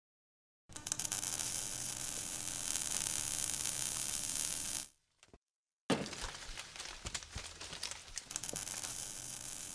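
Sound effects for an animated logo intro: a hissing, crackling noise begins under a second in and cuts off about five seconds in. After a short silence, a sudden hit is followed by irregular crackles and clicks.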